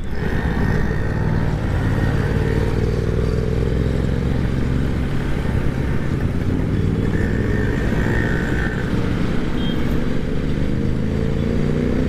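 Hyosung GT250R's V-twin engine running through a loud modified exhaust at a steady cruising speed, its pitch starting to rise near the end as it accelerates.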